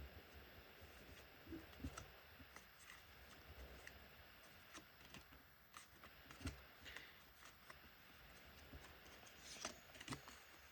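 Faint rustling and soft clicks of trading cards being handled and slid one behind another, with near silence between the small sounds.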